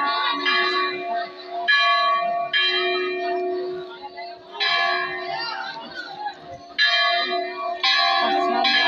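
Hindu temple bells being struck repeatedly, about seven strokes at uneven intervals a second or two apart, each ringing on into the next.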